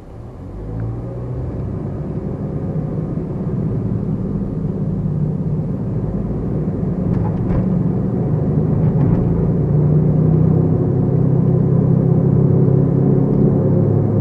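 Toyota Ractis compact car on the move: a low engine and road rumble that grows louder over the first several seconds as the car gathers speed, then holds steady, with a few faint clicks.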